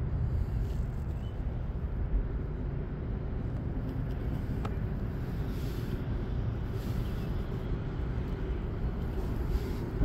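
Steady low outdoor rumble, with a faint click about halfway through.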